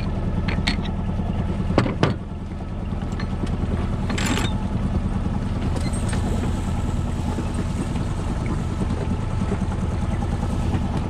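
Sailboat's inboard engine running steadily with a low, even drone. A few sharp clicks and a knock come in the first two seconds as the sheet winch handle is worked and pulled out, and a brief hiss comes about four seconds in.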